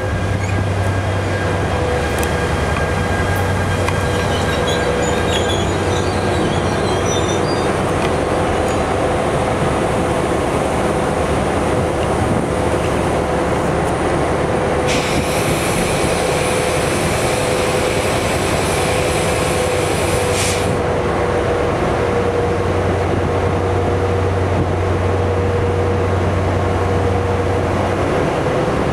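NJ Transit ALP-45DP dual-mode locomotive pulling in and standing at the platform, its diesel engine running with a steady low hum and a constant tone. Faint squeals sound as it comes to a stop, and a hiss lasts about five seconds midway through.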